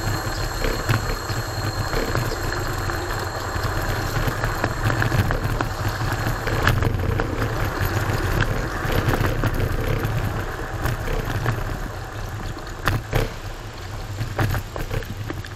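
Wind rushing over an action camera's microphone together with road and tyre noise from an electric kick scooter riding along, with a few sharp knocks. The steady rumble drops a little near the end.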